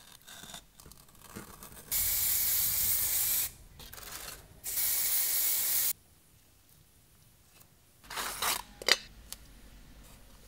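An aerosol spray-paint can spraying in two steady hissing bursts of about a second and a half each. Near the end comes a short ripping sound of masking tape being peeled off.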